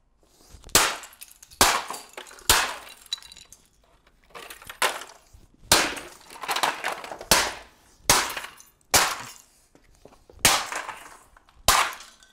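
Hammer blows smashing cheap aftermarket Depo taillights on the floor, about ten strikes spaced roughly a second apart, each with a cracking crunch of breaking plastic.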